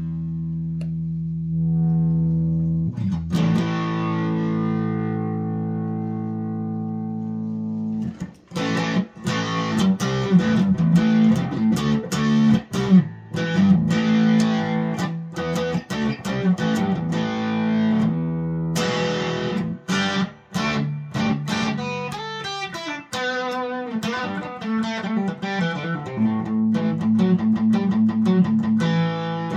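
Epiphone SG G-400 electric guitar with humbucker pickups played through a 2x12 combo amp at low volume: a chord held and left ringing for several seconds, then quick picked riffs and chords, with more held chords just past halfway and near the end.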